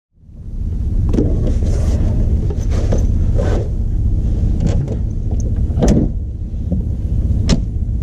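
Wind rumbling against the microphone, with a few short knocks and rustles over it.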